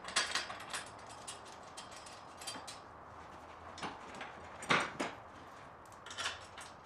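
Scattered light metal clicks and knocks as a steel arm rail is fitted to a golf cart rear seat kit frame, with one louder knock about five seconds in.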